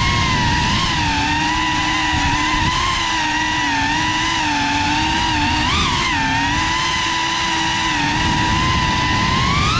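GEPRC CineLog35 cinewhoop FPV drone's motors and ducted propellers whining steadily, the pitch wavering with the throttle and rising briefly about six seconds in and again near the end, over a rough rumble of prop wash.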